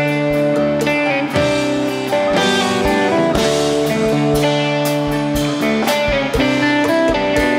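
Rock band music: electric guitar lines over bass and steady drum-kit beats.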